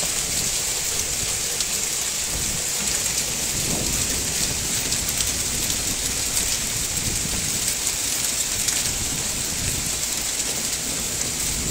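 Hail and heavy rain pelting down in a steady, dense hiss, with many small sharp ticks of hailstones striking.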